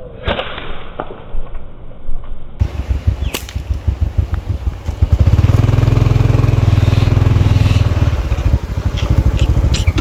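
A small engine running with a fast, even beat; it gets louder about five seconds in, holds, then eases off. A sharp snap sounds just before, near the start.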